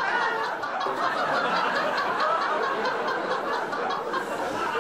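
Men laughing and chuckling, an unbroken stretch of laughter.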